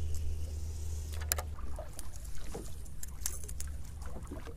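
Choppy water lapping and splashing lightly over a steady low rumble, with a few faint clicks.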